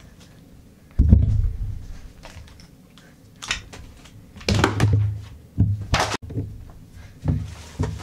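Irregular soft thumps and fabric rustling as stuffed toys and bedding are tossed about and hanging coats are pushed aside, the loudest thump about a second in.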